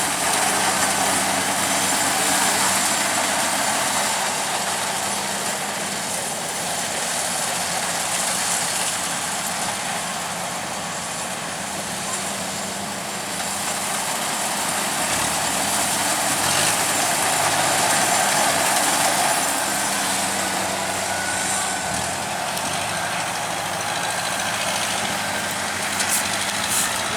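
Kubota DC-70 rice combine harvester running steadily while it harvests: its diesel engine and threshing machinery make a continuous mechanical noise over a steady low hum.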